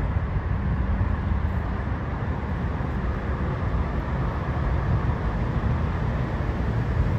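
Steady road traffic noise with wind rumbling on the microphone.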